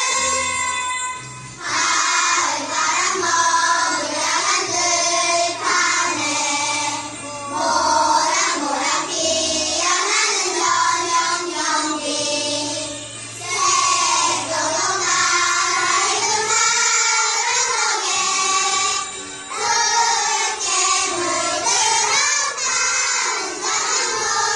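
A group of young children singing a song in unison over instrumental backing music.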